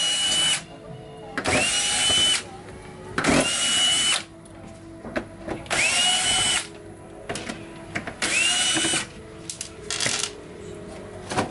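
A 12 V cordless drill-driver backing screws out of a plastic TV back cover in short runs of about a second each, five in all. On each run the motor whine rises quickly to a steady pitch. Small clicks and rattles fall between the runs, with a cluster of them near the end.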